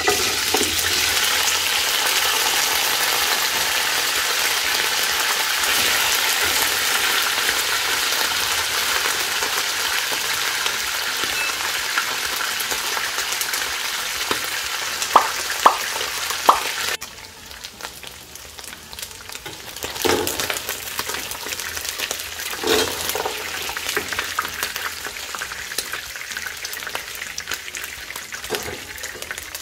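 Turkey wing pieces frying in hot oil in a nonstick pot: a loud, steady sizzle that drops suddenly to a quieter sizzle a little past halfway, with a few knocks and clicks over it.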